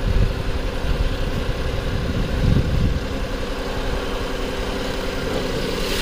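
A 2007 Lincoln MKZ's 3.5 L V6 idling steadily, with a cylinder misfiring: a power-balance test has just shown cylinder one dead. There are a couple of brief low knocks from the hood being released and lifted, near the start and about two and a half seconds in.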